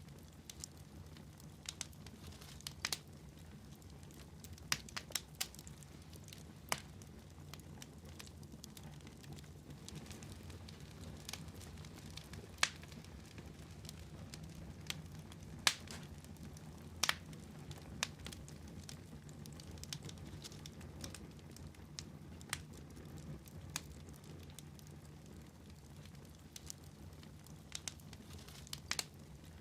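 Wood fire crackling in a fireplace: irregular sharp pops and snaps over a low, steady rumble of the burning logs. The loudest snaps come a little past halfway.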